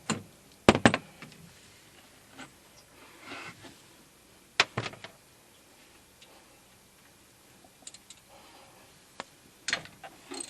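Metal socket and hand tools clinking as a 12 mm socket is fitted to a bolt: scattered sharp clicks and knocks, the loudest a little under a second in, others about four and a half and nine and a half seconds in.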